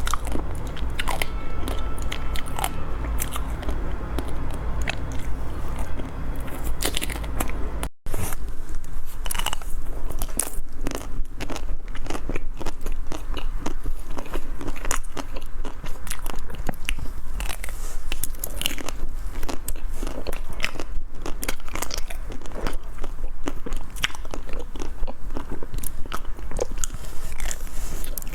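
Close-miked biting and chewing of a Magnum ice cream bar, its chocolate coating crunching and crackling in quick irregular snaps. The sound cuts out for an instant about eight seconds in.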